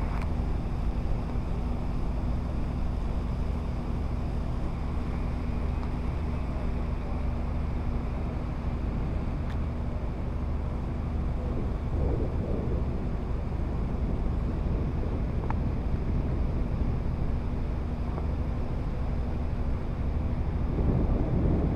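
Boat engine running steadily with a constant low hum, with wind on the microphone over it.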